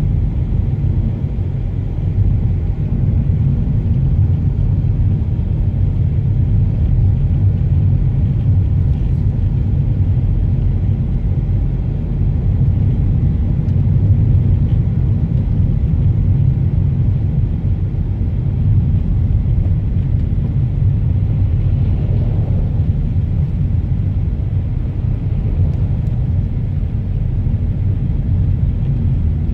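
Steady low rumble of a car driving along the road, engine and tyre noise with no break or change.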